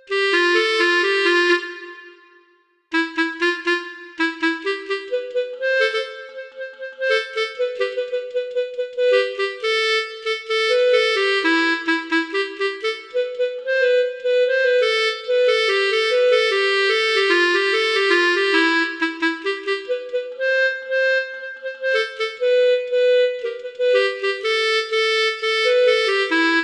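Telolet bus horn, a set of musical air horns, playing a melody of rapid and held notes. There is a short break about two and a half seconds in.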